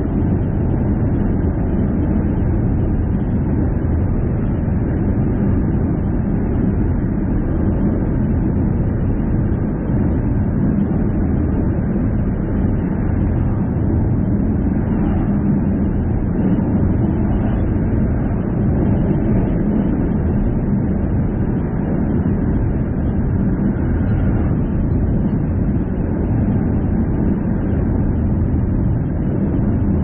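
A car driving steadily: a constant low rumble of road and engine noise with no changes or distinct events.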